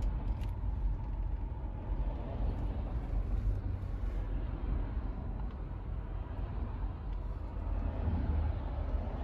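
Steady low rumble of a car driving, engine and road noise without any sharp events.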